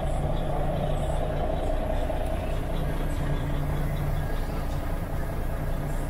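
Volvo FH 500 truck's 13-litre straight-six diesel idling steadily, heard from inside the cab.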